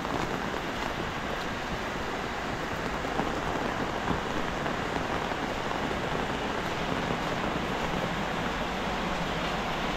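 Heavy rain falling steadily on a paved alley, an even hiss of rain with a few sharper drips.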